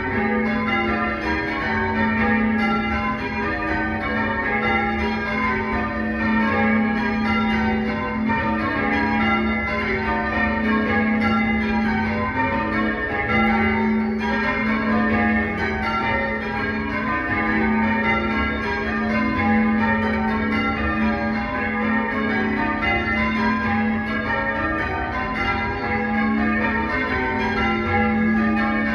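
Tower bells being rung in changes: a steady, unbroken stream of bell strikes following one another, the notes overlapping as each rings on.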